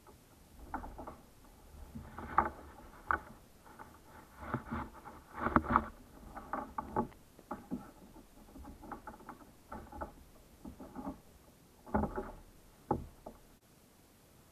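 Irregular knocks, clicks and clatter of gear being handled aboard a plastic fishing kayak, with a few sharper knocks standing out.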